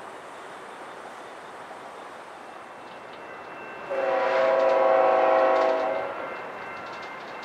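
Union Pacific diesel locomotive's air horn sounding one blast of about two seconds, a chord of several notes, about four seconds in, from a train approaching a station. Faint steady outdoor background before and after.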